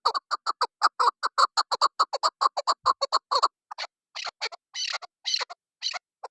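Chukar partridge calling: a fast run of short clucking notes, about eight a second, slowing after about three and a half seconds into a few longer, rougher calls.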